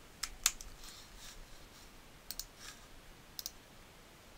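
Sharp clicks of a computer mouse and keyboard keys: a handful of single and paired clicks at irregular intervals, the loudest about half a second in.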